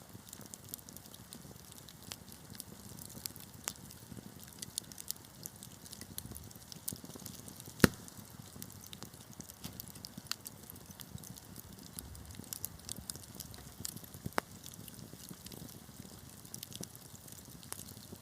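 Wood fire burning in a fireplace: a steady low rumble of flames with irregular crackles and pops, one sharp loud snap about eight seconds in.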